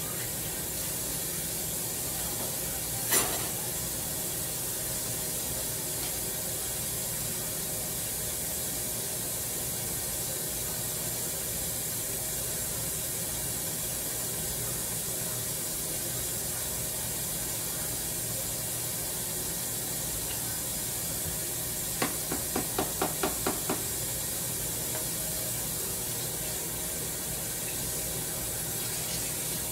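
Steady hiss from the stove area, where pots are cooking under the range hood. A single sharp click comes about three seconds in, and a quick run of about eight light taps follows around twenty-two seconds in.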